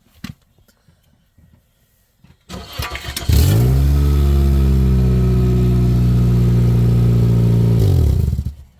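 2004 Toyota Corolla's four-cylinder engine cranked on the starter for about a second and catching. It flares briefly, then settles to a steady idle through an exhaust just repaired at the muffler-to-tailpipe joint. Near the end it winds down and stops.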